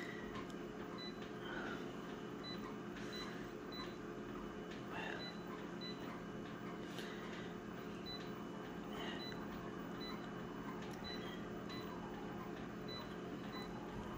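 Multifunction copier humming steadily, with short high beeps and faint taps as its touchscreen control panel is pressed.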